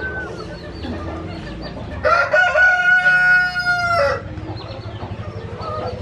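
A rooster crows once: a single drawn-out, steady call of about two seconds, starting about two seconds in.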